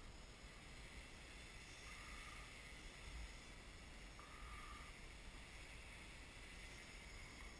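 Faint, distant hum of a quadcopter's electric motors and propellers as it hovers holding position in loiter mode, the pitch steady with a slightly higher tone coming and going, over a low rumble.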